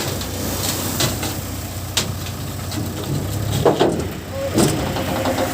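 JCB 3DX backhoe loader's diesel engine running steadily at work, with a few sharp knocks over it.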